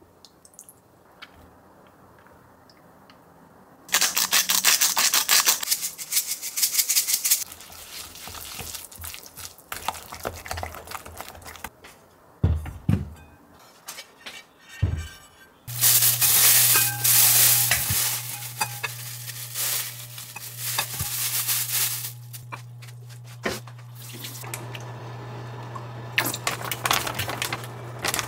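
A wooden spoon stirring thick chili-paste sauce in a glass mixing bowl, scraping and clicking against the glass. Then two low thumps as a griddle pan is set down, after which an induction cooktop hums steadily under a loud hiss.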